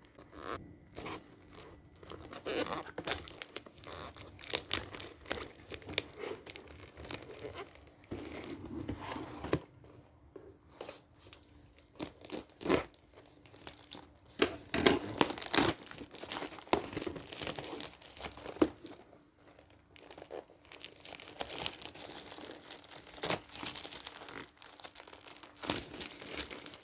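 Parcel packaging being torn open and crinkled by hand, in irregular rips and rustles with a brief lull about two-thirds of the way through.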